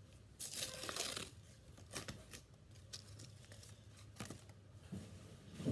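Pokémon booster pack wrapper being torn open and crinkled by hand: a tearing rasp about half a second in, then scattered short crinkles.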